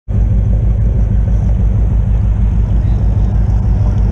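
Sportfishing boat's engine running: a loud, steady low rumble with a fast, even pulsing that cuts in abruptly at the start.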